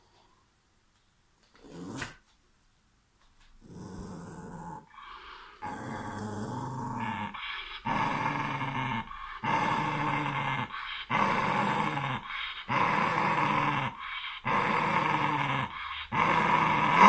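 Dog growling in a string of long rumbles, each about a second and a half, broken by short pauses for breath. It starts faint a few seconds in and grows louder: a guarding growl.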